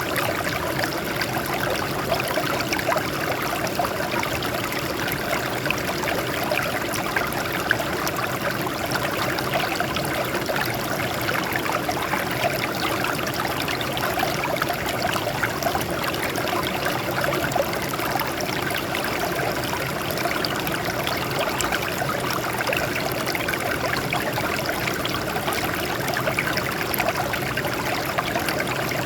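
Water flowing and trickling over rocks in a small stream, a steady splashing babble with no let-up.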